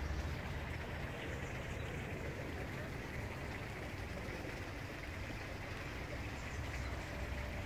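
Steady background ambience: a low rumble under an even hiss, with no distinct events.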